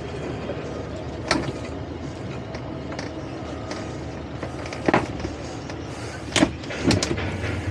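Twin outboard motors on a towboat running steadily while towing a boat on a line. A few sharp knocks cut through, about a second in, near five seconds and twice near the end.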